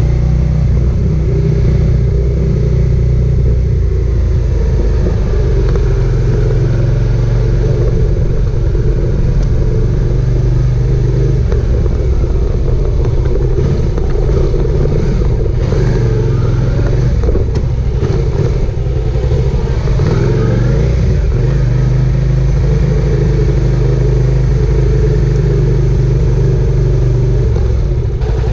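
Suzuki SV650S V-twin engine running under way, heard close from the fuel tank, mostly steady with the engine pitch wavering up and down in the middle.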